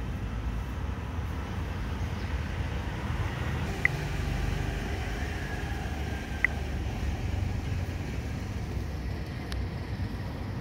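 Steady low outdoor background rumble, with two short, sharp high chirps about two and a half seconds apart.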